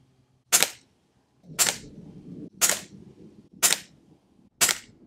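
A .22 PP700SA pre-charged pneumatic air pistol fitted with a moderator, fired five times at about one shot a second, each a short, sharp crack.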